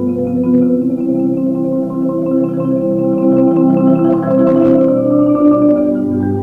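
Background music: a melody over held chords, steady throughout.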